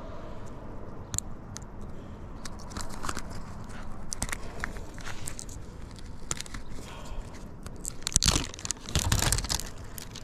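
Plastic film crinkling and tearing as the backing is peeled off a self-adhesive roof ridge roll and the pleated roll is pressed down onto the tiles. The crackles are scattered, with a louder burst of crinkling about eight seconds in.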